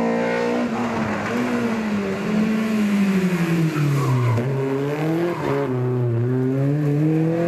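BMW E30 rally car's engine coming off the throttle into a tight corner, its note falling over the first four seconds, with a couple of quick jumps and drops in pitch around the turn. It then climbs steadily as the car accelerates out, with tyre noise as the car slides through the corner.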